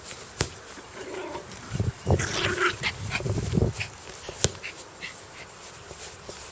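Dog growling fiercely in one burst of about two seconds, starting nearly two seconds in, with a couple of sharp clicks before and after.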